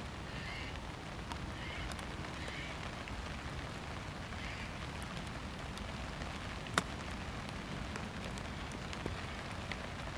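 Steady hiss of rain, with one sharp click about two-thirds of the way through: a sand wedge striking the golf ball on a short chip shot.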